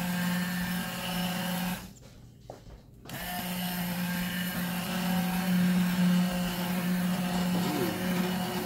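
Cuisinart immersion blender motor running steadily as it purées cooked butternut squash and apple soup in the pot. It stops for about a second near two seconds in, then starts again.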